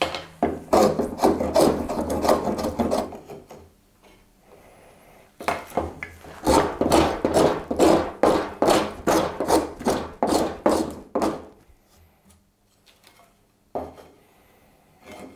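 Homemade wooden scrub plane with a highly cambered blade taking coarse shavings across the grain of partially air-dried Atlantic cedar. Two runs of quick strokes, the second longer at about two strokes a second, followed by a single knock near the end.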